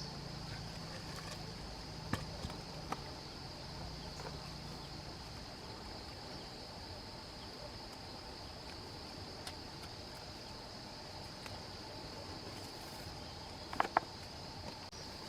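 Insects chirring in a steady, continuous high trill, with a few sharp clicks or knocks about two seconds in and a close pair near the end.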